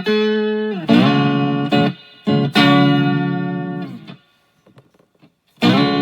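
Electric guitar played through a pedal chain: three strummed chords left to ring and fade, a pause about four seconds in, then short choppy chords near the end.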